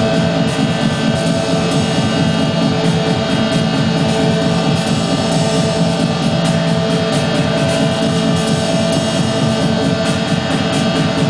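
Live noise music played on electronic equipment: a loud, dense, unbroken wall of distorted noise over sustained droning tones.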